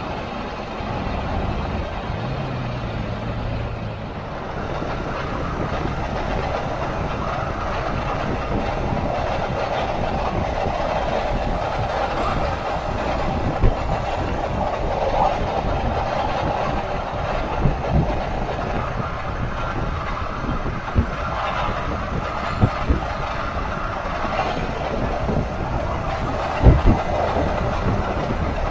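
Cab noise of a 2016 Ford F-150 SuperCrew driving: a steady drone of road and driveline noise, which the owner takes for a dry bearing, with several sharp thumps in the second half as the tyres hit bumps or road joints.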